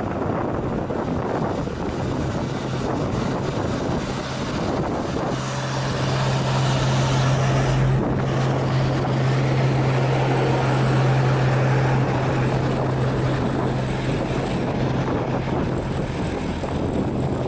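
Heavy diesel truck engine labouring up a steep grade under an overload, a steady low drone at an unchanging pitch. It grows louder about five seconds in and fades again near the end, with wind on the microphone throughout.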